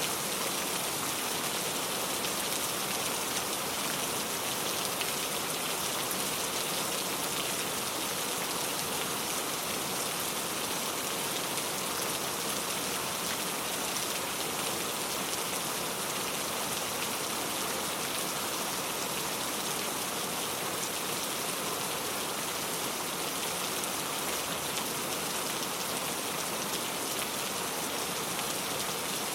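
Steady rain falling on a surface, an even wash of drops that neither builds nor fades.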